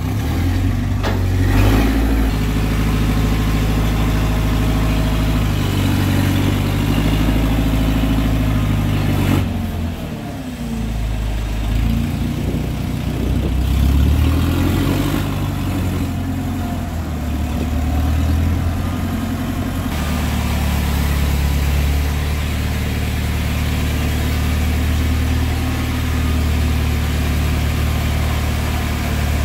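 An engine running steadily, its pitch shifting a few times, with a brief dip in level about ten seconds in.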